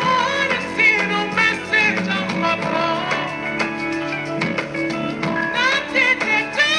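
A male vocalist singing live over sparse, stripped-down instrumental backing, his voice sliding between sustained notes.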